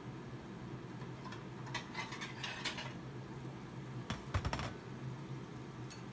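Kitchen clatter: a run of light clicks and rattles, then a few sharper clicks with a low thump about four seconds in, over a steady low hum.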